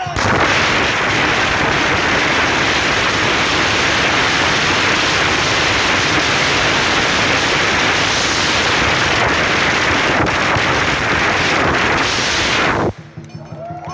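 A long string of firecrackers going off in a continuous, dense crackle that lasts about thirteen seconds and then stops abruptly near the end.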